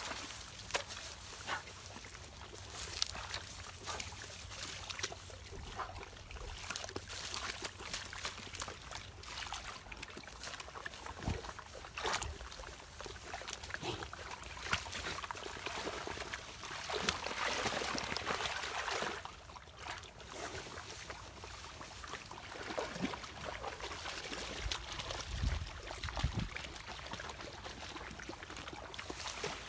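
Water sloshing and trickling as several large dogs wade and splash through shallow lake water, in irregular small splashes with a busier stretch a little past halfway.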